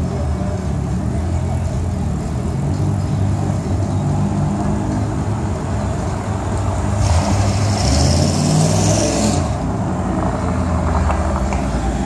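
Classic cars driving slowly past with their engines running. A hiss starts about seven seconds in and stops after about two seconds.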